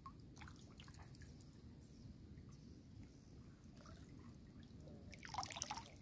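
Faint water dripping and small splashes at the water's edge, with a short cluster of louder splashing about five seconds in.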